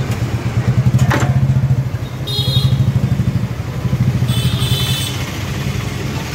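An engine idling with a rapid, pulsing low throb. Two short higher-pitched hisses come about two and four seconds in.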